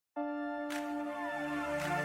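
Background music starting up: sustained synth tones with a soft swell, growing louder.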